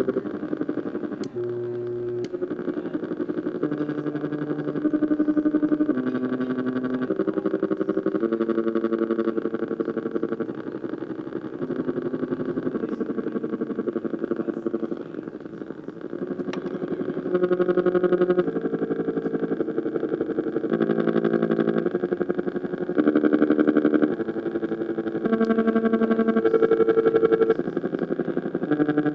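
Buzzy electronic tones from a loudspeaker playing the blinking of a spinning red-green-blue LED wheel turned into sound. The pitch jumps to a new chord of notes every half second to second or so as the light pattern changes.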